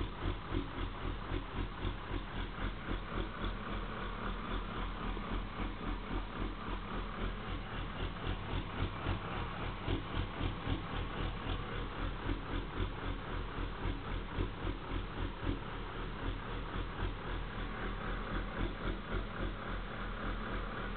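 Pickup truck engine idling in gear with a regular throbbing shudder of about two to three pulses a second, with a rattle. It is a rough in-gear idle that is absent in neutral.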